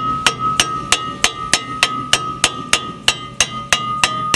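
Hammer striking a rust-seized brake disc (rotor) about three times a second to knock it free of the wheel hub, with a steady metallic ring between blows.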